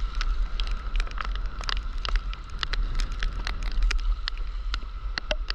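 Rain falling, with many irregular sharp drop ticks close to the microphone over a steady low wind rumble.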